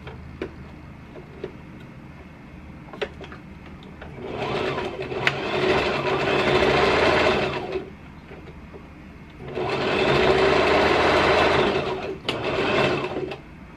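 Electric sewing machine stitching pinned fabric layers in three runs: a run of about three and a half seconds, a pause of under two seconds, then a run of about two and a half seconds and a short burst near the end. A few light clicks come before the machine first starts.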